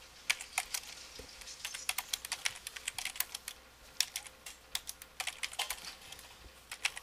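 Typing on a computer keyboard: quick key clicks in irregular runs with short pauses between them.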